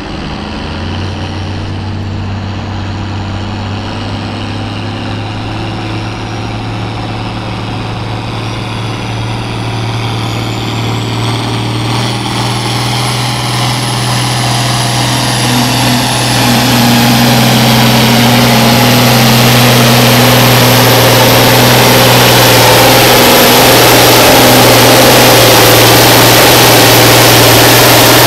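John Deere 4430's turbocharged six-cylinder diesel running under full load as the tractor pulls a weight-transfer sled, getting steadily louder over the first sixteen seconds or so. About ten seconds in, a high whine starts, climbs in pitch, and then holds high.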